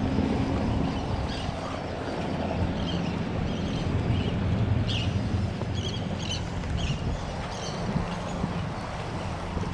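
Wind over the microphone on an open pier, over a steady low rumble, with a scatter of short high-pitched ticks through the latter part.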